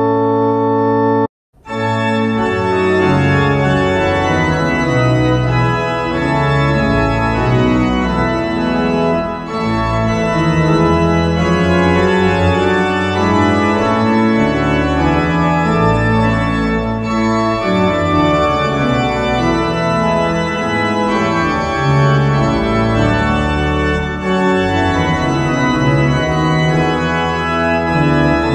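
Organ music: held chords over a moving bass line, changing roughly every second. About a second and a half in, the sound cuts out completely for a moment, then the playing resumes.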